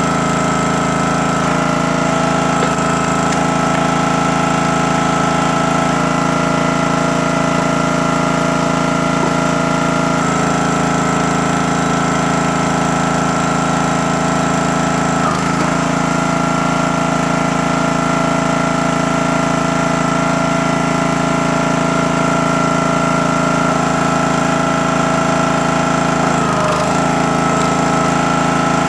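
Small gasoline engine of a CountyLine 28-ton hydraulic log splitter running steadily; its pitch briefly sags twice, about halfway through and again near the end.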